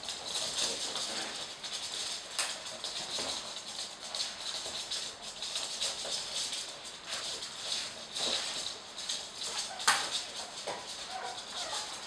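Flat microfibre mop swishing back and forth over a laminate floor, with Jack Russell terrier puppies' claws clicking and scrabbling on the boards. A sharp knock near the end is the loudest moment.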